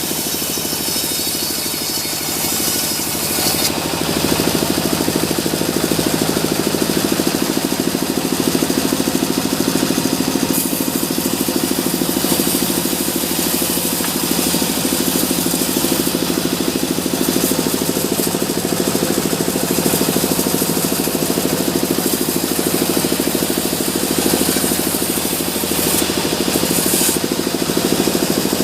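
Sawmill machinery running steadily with a dense, rapid engine-like pulsing, while a higher hiss rises and falls in stretches.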